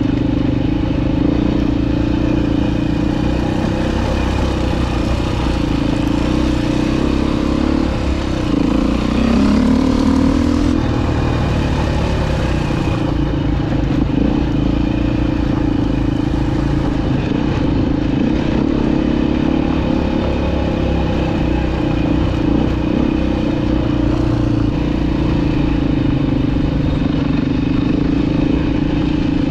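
Dirt bike engine running steadily while being ridden along a trail. Its pitch drops briefly about eight seconds in, then picks back up.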